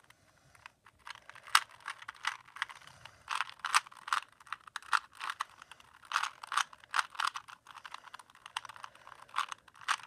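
Plastic 3x3 Rubik's cube being turned quickly by hand: a rapid, irregular clicking and clacking as its layers are twisted, several turns a second.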